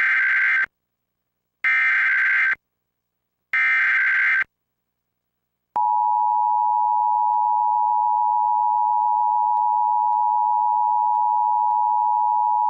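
Emergency Alert System SAME header: three short data bursts about two seconds apart. About six seconds in, the steady EAS two-tone attention signal starts and holds.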